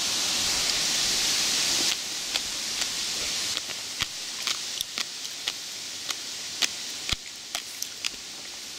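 A steady hiss that stops suddenly about two seconds in, followed by scattered sharp clicks and snaps of a hand picking wild blackberries through bramble stems and leaves.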